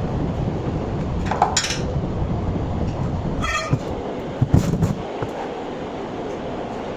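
MIG welder arc running with a steady crackling rumble that eases off about five seconds in. A short high squeak and a few sharp clicks sound along the way.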